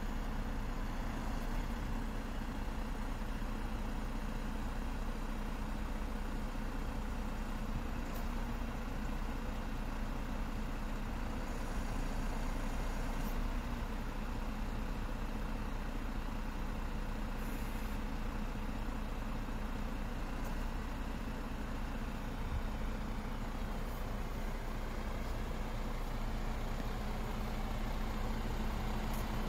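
MAN TGX 26.440 truck's straight-six diesel engine idling steadily.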